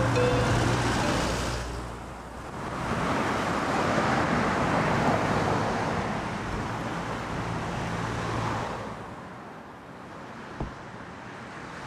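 Street traffic noise: a motor scooter's engine runs as it passes, then a second swell of passing-traffic noise with a low engine hum builds over a couple of seconds, holds, and fades to a faint street hum.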